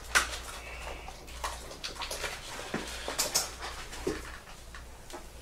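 A man sobbing: broken, whimpering cries mixed with sharp sniffs and breaths.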